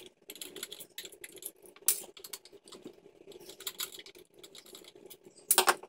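Many light clicks and taps as the aluminium and plastic case of a Monster Power surge protector is handled and taken apart, with a cluster of louder clicks near the end.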